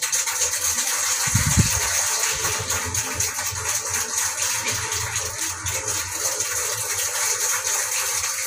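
A loud, steady rushing hiss that starts and stops abruptly, with a dull thump about a second and a half in.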